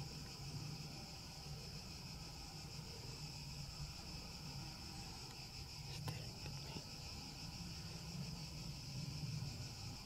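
Steady, high-pitched chorus of insects, unbroken throughout, over a low rumble.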